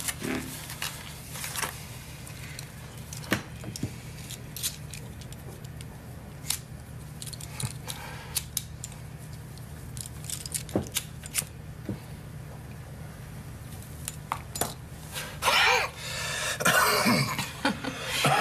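Scattered small clicks and clinks at a table as a man lights a cigarette. About three seconds before the end he coughs hard on his first drags, a non-smoker choking on the smoke.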